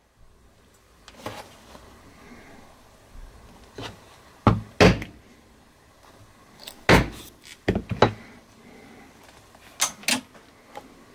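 A mallet striking a 5 mm leather hole punch to cut holes through leather: sharp knocks, mostly in pairs, starting about four seconds in, with fainter clicks of handling in between.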